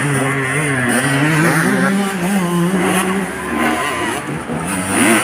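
Motocross dirt bike engines revving as the bikes ride the track, their pitch rising and falling with the throttle. More than one engine is heard at once.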